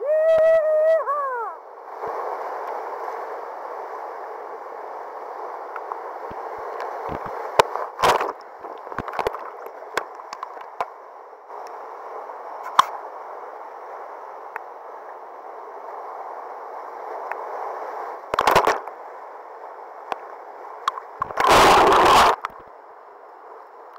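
Whitewater rushing steadily as a kayak runs rapids, with a short yell right at the start and scattered sharp knocks of paddle and hull. Two loud bursts of water crashing over the boat come near the end, the second as the camera goes under the wave.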